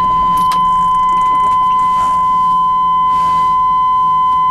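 A loud, steady, high electronic beep held as one unbroken tone, over a low engine hum.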